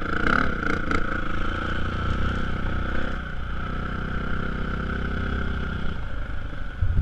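Dirt bike engine running at a steady speed.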